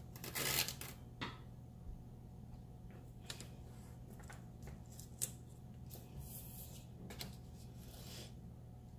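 Washi tape and planner paper being handled on a table: a short scratchy rustle about half a second in, then scattered light taps and brief brushing sounds as the tape is laid and pressed down.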